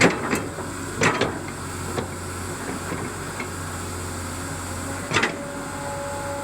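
Excavator running steadily with a low hum, with sharp metallic clanks: several in the first second or so and another about five seconds in.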